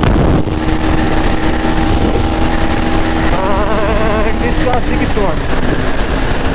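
KTM Duke 250's single-cylinder engine running steadily at high revs, a buzzing note, at around 130 km/h, with wind rushing over the microphone. A wavering higher tone comes in for about a second midway.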